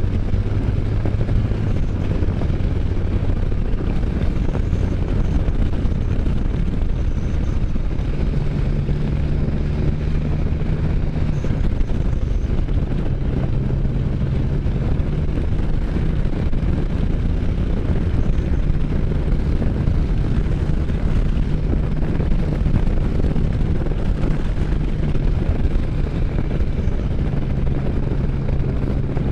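Can-Am Spyder roadster's engine running steadily under way, its pitch stepping up and down a few times as the speed changes, under a constant rush of wind over the microphone.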